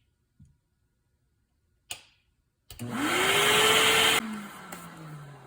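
Vacuum cleaner switched on near the middle, its motor whining up to speed as it sucks sawdust out of the miter saw. It runs for about a second and a half, then is switched off and winds down with a falling whine. A couple of faint clicks come before it starts.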